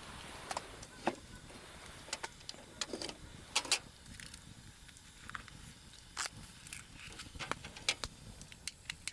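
Sparse, irregular light clicks and taps, the sharpest about a second in and around three and a half seconds in, over a faint steady hiss.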